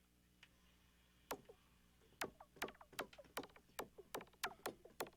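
Native Instruments Massive X synth preset played as a string of short, clicky percussion hits, each with a quick downward pitch drop. One lone hit comes about a second in, then a run of them at a few a second.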